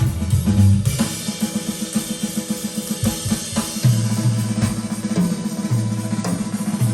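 Recorded music with a busy drum kit and bass, with a fast, even run of drum hits, played back through Tannoy Platinum B6 speakers.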